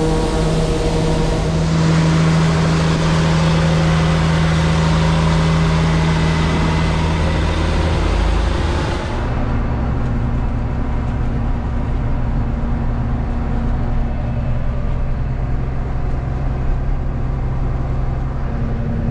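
Tractor engine running steadily under load while the grain cart unloads corn into a semi, with a hiss of machinery and grain over it. About halfway through the sound changes abruptly to a different, duller steady engine drone.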